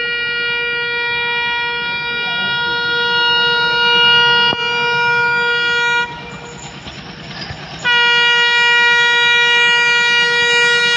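Indian Railways passenger train locomotive sounding its horn as it approaches: one long, steady single-tone blast that stops about six seconds in. After a two-second gap filled by the train's running rumble, a second long blast starts near eight seconds and carries on.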